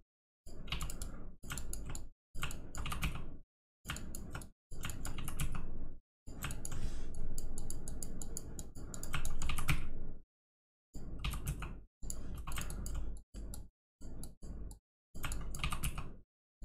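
Computer keyboard keys clicking in short bursts of typing, with dead-silent gaps between the bursts.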